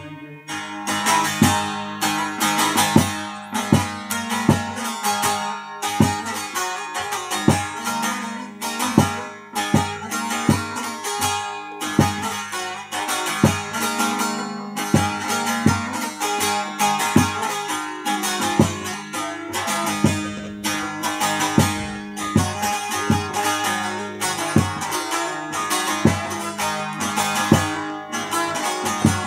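Bağlama (Turkish long-necked saz) played solo: a fast, steady strummed instrumental passage, with a ringing low drone under the strokes.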